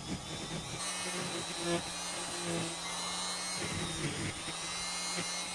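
Electric straight grinder running with a burr against olive wood, giving a steady motor whine.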